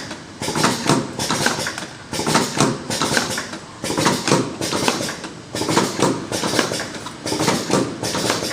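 Vertical automatic cartoning machine running, its mechanism clattering and clicking in a regular cycle a little more than once a second.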